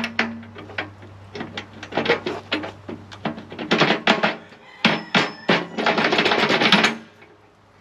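Metal clinks and knocks of bolts and nuts being fitted through a steel loader tooth bar against the bucket's cutting edge, with a quick run of rapid clicks about a second long near the end.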